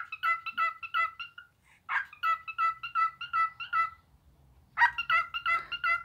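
Cockatiel whistling its song in three runs of quick, same-pitched chirping notes, about five a second, with short pauses between the runs.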